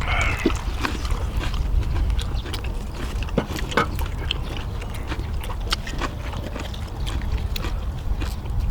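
People eating at the table: chewing and lip-smacking with many small sharp clicks and wet smacks, over a steady low rumble.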